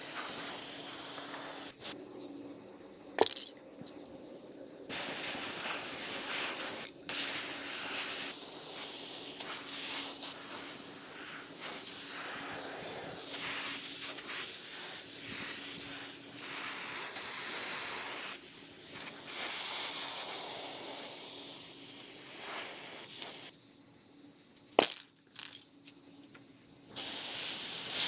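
Aerosol spray can spraying in long hissing bursts, with two pauses of a few seconds in which there are a few sharp clicks.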